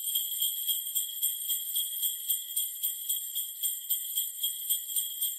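Sleigh bells jingling in a fast, even rhythm, with a steady high ringing.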